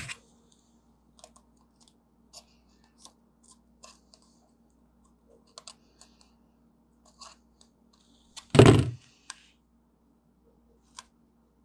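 Light clicks and taps of an original iPhone's aluminium back cover and metal frame being handled and fitted together, with one louder thump about eight and a half seconds in.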